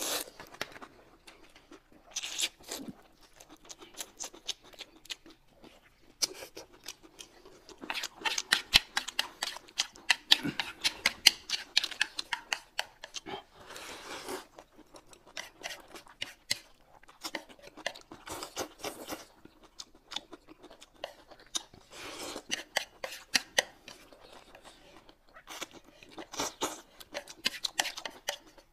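Close-up sounds of handling and eating food: many sharp clicks, crunches and tearing sounds in clusters with short pauses between them.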